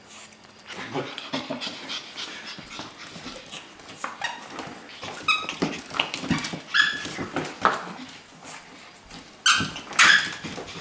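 Pug puppy yipping and giving small high-pitched barks, a string of short ones, the loudest two near the end. A few soft scuffles and clicks come before them.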